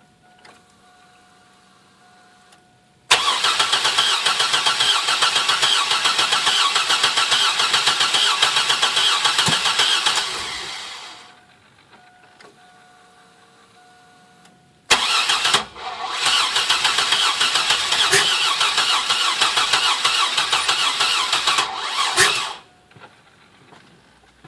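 A 2002 Chevy S-10's starter cranking the engine twice, about seven seconds each time, without it catching. This is a crank-but-no-start fault. A faint steady tone sounds before each attempt.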